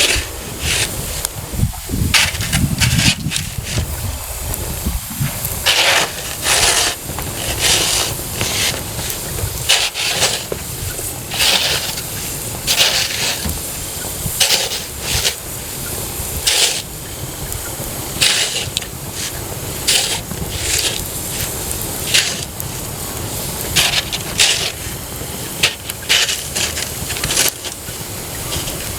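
Wood campfire burning, with irregular sharp pops and crackles over a steady hiss. A brief low rumble comes about two seconds in.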